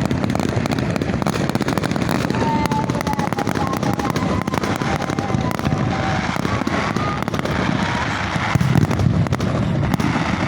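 A fireworks display going off close by: a dense, unbroken barrage of crackling bangs. A thin whistling tone wavers through the middle of it.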